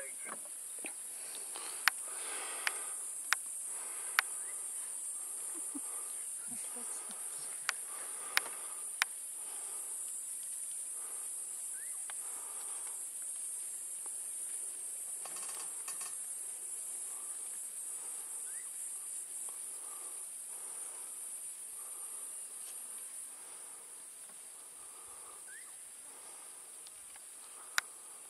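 A steady, high-pitched chorus of insects, easing a little after about twenty seconds, with a handful of sharp clicks in the first ten seconds and another near the end.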